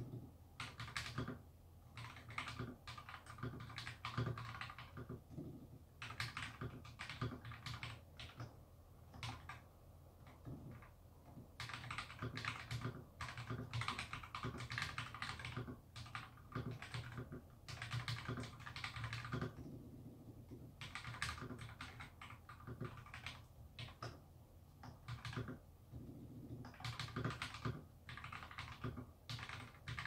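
Typing on a custom mechanical keyboard with Akko CS Matcha switches on a DZ60RGB board: quick runs of key clicks in bursts with short pauses. A steady low hum sits underneath.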